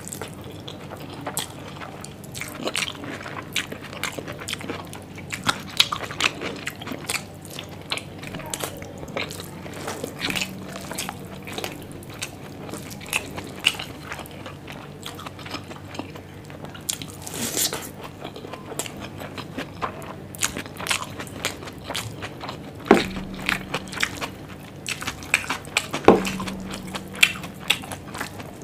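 A person chewing and smacking mouthfuls of Schezwan fried rice eaten by hand, with wet clicks and smacks coming irregularly throughout. There are two sharper, louder clicks in the last several seconds.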